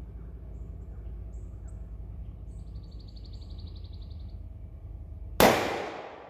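A single rifle shot from a Howa 1500 bolt-action rifle fitted with a muzzle brake, a sharp loud crack about five seconds in that rings out and fades over about a second. Before it, a faint low rumble and a few faint bird chirps with a brief rapid trill.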